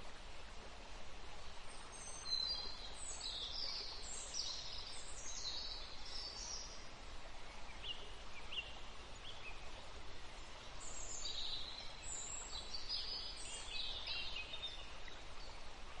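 Small songbirds chirping and twittering in two bouts, one about two seconds in and another near the end, over a steady background hiss.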